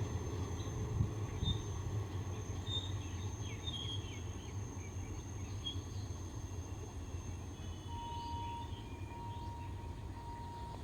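Low rumble of a train fading away after it has passed, with birds chirping. From about eight seconds in, a steady beeping starts, roughly one beep a second.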